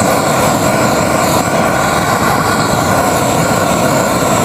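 Propane roofing torch for modified bitumen burning steadily at a high flame, an even, loud rushing hiss with no change in level.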